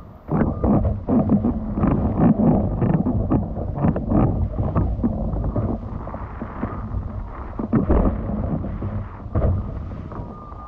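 Wind buffeting the camera's microphone in irregular gusts, with the rush and slap of water, while windfoiling at speed.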